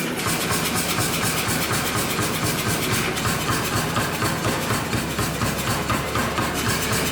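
Power hammer drawing out a hot Damascus steel billet: rapid, even blows, several a second, with a steady hiss underneath.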